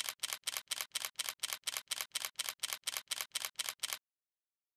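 Camera shutter firing in a rapid continuous burst, about four clicks a second, that stops suddenly about four seconds in.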